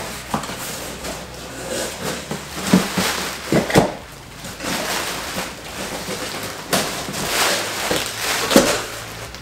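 Cardboard guitar shipping box being torn open by hand: irregular tearing, scraping and rustling of cardboard, with a few sharp knocks against the box.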